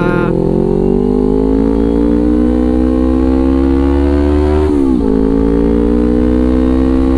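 Kawasaki Ninja 250 FI parallel-twin engine breathing through a Villan New ZX1 aftermarket exhaust under acceleration. The pitch rises steadily for about five seconds, drops sharply as the rider shifts up a gear, then climbs again more slowly.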